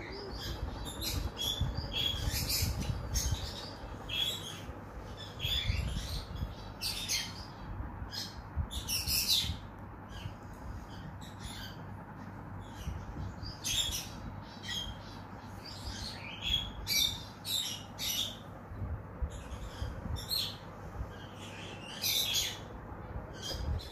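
Small birds chirping: many short, high calls at an irregular pace of one or two a second, over a steady low rumble.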